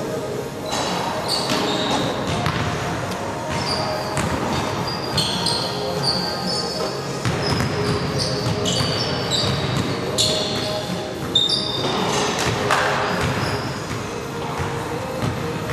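Pickup basketball on a hardwood court: many short, high sneaker squeaks on the floor, with the ball bouncing and players' voices.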